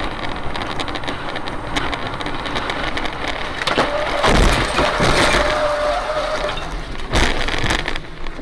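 Road and engine noise heard from inside a moving car. About four seconds in, a heavy crash and clatter as wreckage of an airliner breaking up on the highway strikes the car and its windshield, with a steady tone for about two seconds after it. A second hard impact follows about seven seconds in.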